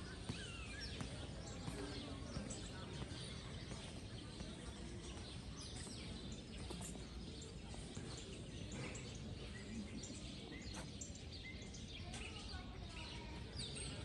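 Outdoor ambience of steady low background noise, with small birds chirping and faint distant voices.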